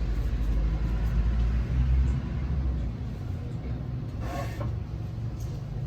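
A low background rumble, strongest for the first three seconds and then easing off, with a short higher-pitched sound a little after four seconds in.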